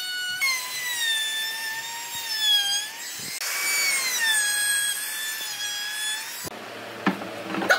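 Trim router running as it routes the edge of a round wooden tabletop, a high motor whine that wavers in pitch as the bit cuts. Near the end the whine stops and a couple of sharp knocks follow.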